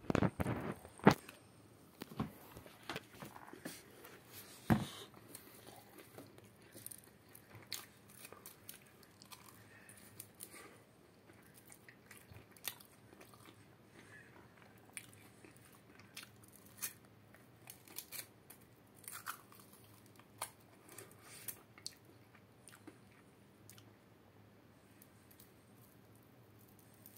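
Close-up handling and eating sounds: stainless metal tongs clicking and crisp fried food crunching. A dense run of loud clicks in the first second, a few strong ones in the next few seconds, then scattered fainter clicks.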